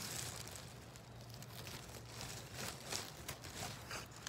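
Scissors snipping nettle stems, with the leaves rustling against the blades and the willow basket; several short crisp snips come in the second half.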